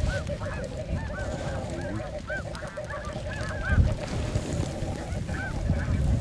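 Many snow geese calling at once, a dense chorus of overlapping high-pitched yelps, with wind buffeting the microphone and gusting about four seconds in.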